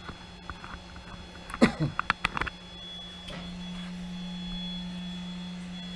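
Camera handling noise as it is lifted off its tripod: a cluster of clicks and knocks about a second and a half in, followed by a steady low hum.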